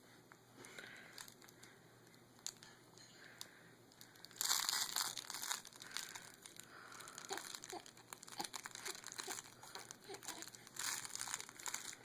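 Crinkling, like thin plastic or paper being crumpled and handled, in two louder bouts: one about four seconds in lasting a second or two, and a shorter one near the end, with light crackles in between.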